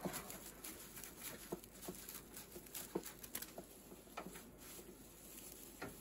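Dry timothy hay rustling and crackling as a bunch of it is handled and trimmed with scissors, with scattered sharp clicks.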